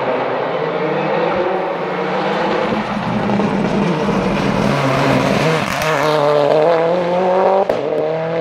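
Race car engine at full throttle, accelerating hard through a bend and up the hill. Its pitch climbs steadily, breaks briefly at a quick upshift near the end, then climbs again.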